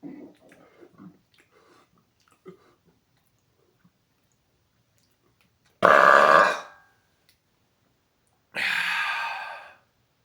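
A man's deliberately loud, raspy burp about six seconds in, followed about two and a half seconds later by a shorter, hissier rush of air. A few faint clicks come before it.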